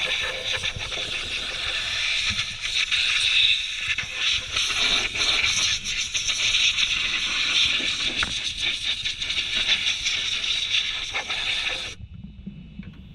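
Losi DBXL-E 1/5-scale electric desert buggy driving through snow: a steady high motor whine over a rough hiss of tyres churning and scraping snow. About twelve seconds in, the sound cuts off abruptly, leaving a quieter low rumble.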